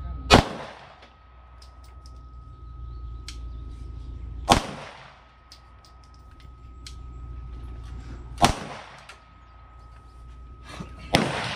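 Gunshots on an open-air firing line: four single shots about four seconds apart, each followed by a short echo.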